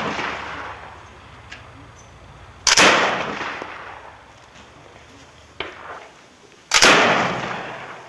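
Two loud shots from a 30 mm hand-held grenade launcher (AGB-30) firing VOG-17 grenades, about four seconds apart, each report echoing away over about a second. A fainter, shorter bang comes between them.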